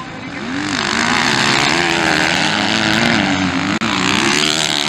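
Several motocross bikes racing past at full throttle, their engine notes rising and falling as the riders rev through a corner and over jumps, louder over the first second. The sound drops out for an instant about four seconds in.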